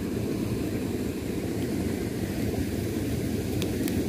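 Wind rumbling steadily on the microphone, with two faint clicks near the end.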